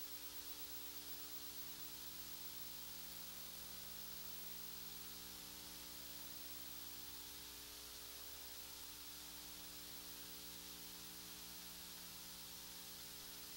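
Faint steady hiss with a low electrical hum underneath, unchanging throughout: a blank recording's noise floor, with no program sound.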